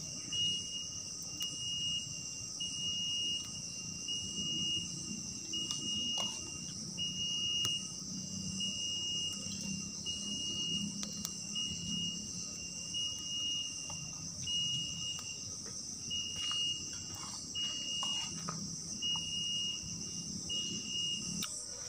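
Forest insects calling: a steady high-pitched buzz, with a shrill note repeating about once a second over it. A few faint clicks and knocks come in near the end.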